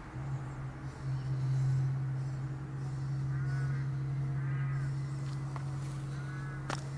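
A crow cawing three times, about a second apart, over a steady low hum, with a sharp click near the end.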